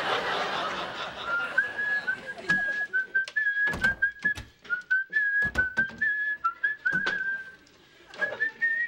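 A man whistling a tune, a run of short held notes, while several sharp knocks of cupboard doors and kitchen items being handled sound. Studio audience laughter dies away in the first second.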